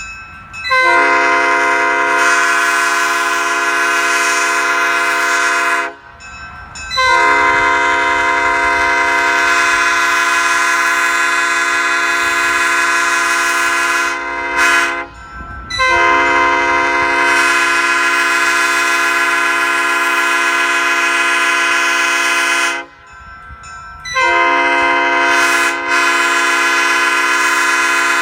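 Nathan Airchime P5A five-chime locomotive air horn, its #4A bell in place of the usual #4 giving a slightly higher-pitched chord, sounding in long steady blasts of five to seven seconds each with short breaks, and one brief toot between the second and third blast.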